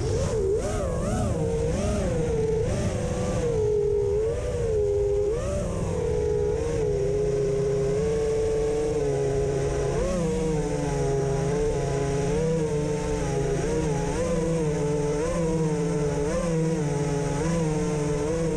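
Onboard sound of a 5-inch FPV racing quadcopter's Armattan 2306 brushless motors and propellers whining. For the first several seconds the pitch wavers up and down, then it settles into a steadier hum as the quad sits on the ground with its motors still spinning at idle.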